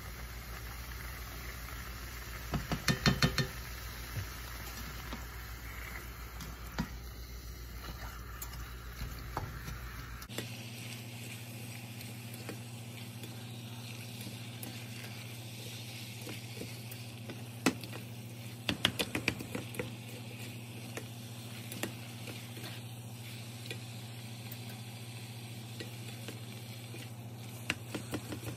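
Ground chicken and diced onion sizzling in a cast-iron skillet, with a spatula scraping and clacking against the pan in short bursts as the meat is stirred and broken into crumbles: a cluster of taps about three seconds in, another around eighteen to twenty seconds, and a few near the end.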